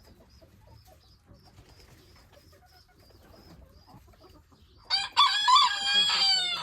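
A rooster crowing once, loud and pitched, starting near the end and lasting under two seconds. Before it, only faint, quiet farmyard sounds.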